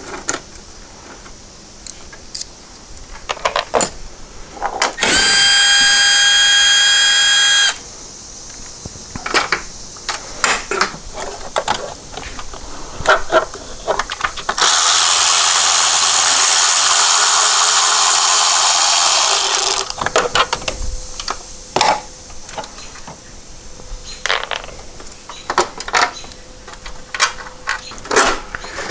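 A cordless power drill-driver runs twice, backing fasteners out of a plastic air filter box. First comes a steady whine of about three seconds, then, after a pause, a harsher, noisier run of about five seconds. Short clicks and knocks of plastic parts being handled come between the runs.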